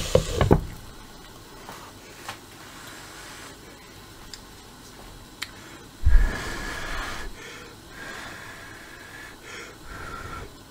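A glass pan lid clatters back down onto a frying pan, then the covered pan of cubed zucchini hisses faintly as it steams and braises. About six seconds in there is a sudden low thump with a short burst of hiss.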